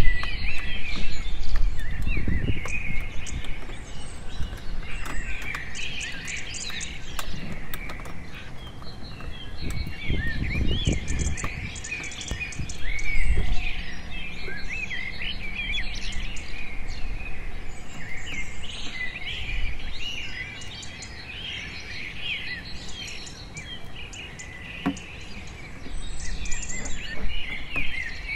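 Many birds chirping and calling without pause, over occasional knocks and scraping from a utility knife cutting into a large plastic water jug, with a few heavier thuds.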